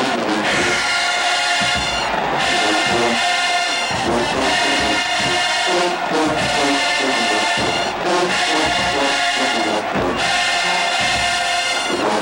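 Marching band playing in the stands: a loud brass section of trumpets, trombones and sousaphones over drums, repeating a short phrase, with the horns breaking off briefly about every four seconds.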